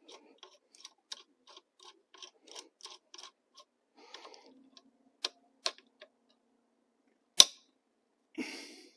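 Chisel bit and locking collar of a VIVOHOME electric demolition hammer being worked by hand to free the bit from the chuck, with the hammer switched off: a run of small irregular clicks, about three a second, for the first few seconds, then two sharper clicks and one loud metal clack about seven seconds in, and brief handling rustle near the end.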